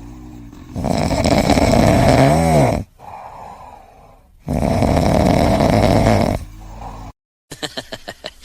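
A sleeping pet snoring: two long, loud snores a few seconds apart. Near the end the sound cuts off for a moment and a different, choppier sound follows.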